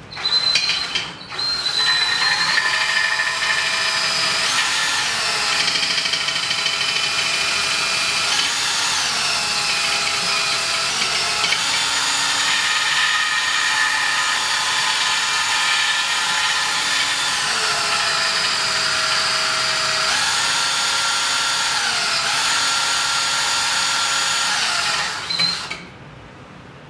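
Cordless drill spinning a carboy brush inside a glass carboy to scrub residue off the glass. The motor whine, over a steady hiss, starts at once, stops briefly about a second in, then runs on, stepping up and down in pitch several times, and cuts off near the end.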